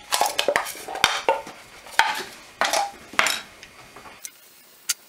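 Small metal hand tools and wire being handled on a workbench: a clatter of sharp clicks and metallic clinks for about four seconds, then a single click near the end.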